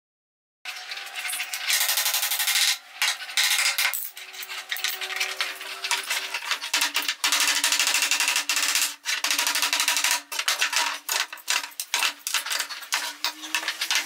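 Claw hammer striking pallet wood and nails in many quick, irregular blows, starting after a moment of silence.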